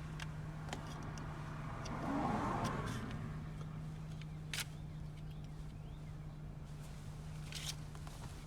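Scattered sharp clicks of a Glock 44's slide and frame as they are fitted and taken apart again, over a steady low hum. A rushing noise swells up about two seconds in and fades within a second or so.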